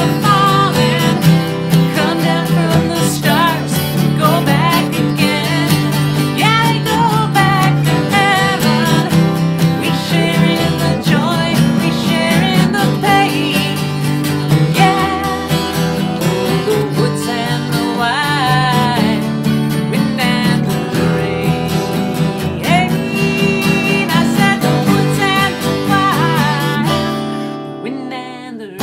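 Two acoustic guitars strummed and picked in a country-folk song, with a woman singing over them. The music drops away briefly just before the end.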